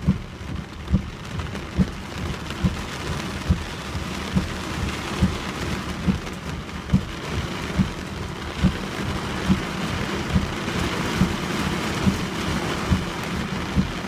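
Heavy rain falling steadily in a thunderstorm, its hiss growing stronger in the second half. A regular low thump repeats a little more than once a second throughout.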